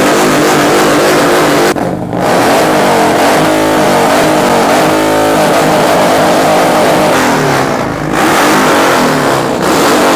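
Two Harley-Davidson V-twin motorcycles revved hard together in an exhaust rev-off, the engines held high and wavering in pitch, with brief let-offs about two seconds in and again near eight seconds.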